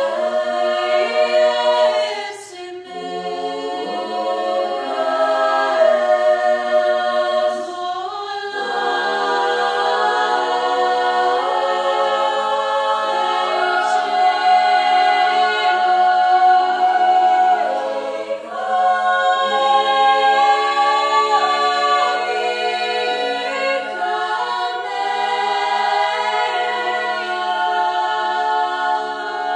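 Choir singing a cappella: slow, held chords that shift every second or two, with brief breaks between phrases.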